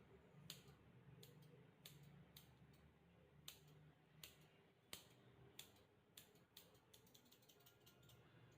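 Grooming scissors snipping a dog's fur: single snips spaced irregularly, then a quick run of small snips near the end.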